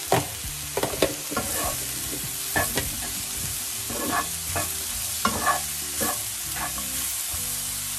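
Sliced mushrooms and peas sizzling in a nonstick frying pan while a wooden spatula stirs them, with irregular scrapes and knocks of the spatula against the pan. The salted mushrooms are cooking off the water they release.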